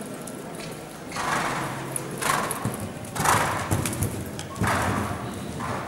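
A horse cantering on the sand footing of an indoor arena, its hooves thudding and scuffing in a steady rhythm of about one beat a second.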